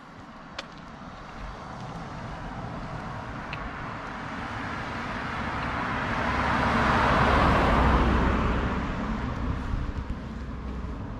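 A van driving past on an asphalt street, its tyre and engine noise swelling to loudest about eight seconds in and then fading away.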